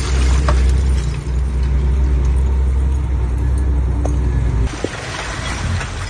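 A 5-ton dump truck's diesel engine running at steady, raised revs as its loaded tipper bed begins to rise, then dropping off sharply about three-quarters of the way through. A few light clicks sound over it.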